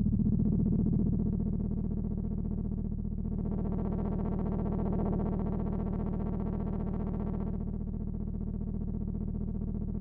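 Behringer UB-Xa analog polyphonic synthesizer holding a sustained low drone. Its tone grows brighter from about three seconds in and dulls again near seven and a half seconds, as a panel knob is turned.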